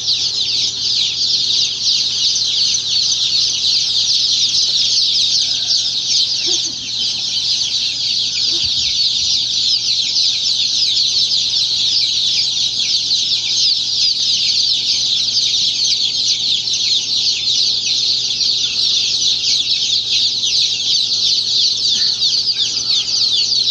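A large flock of day-old chicks peeping all at once: a dense, continuous mass of high-pitched overlapping cheeps, with a faint steady hum beneath.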